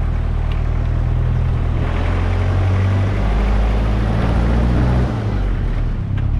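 Steady engine drone and rushing noise of a moving vehicle.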